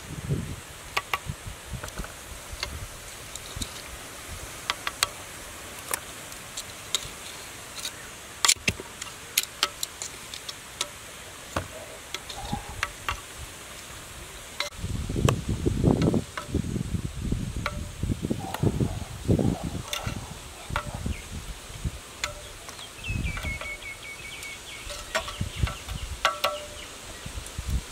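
Metal kitchen tongs clicking and clacking against a clay pot and a plastic basket as boiled potatoes are lifted out and dropped in, with heavier dull knocks and rumbles about halfway through. Insects buzz faintly in the background.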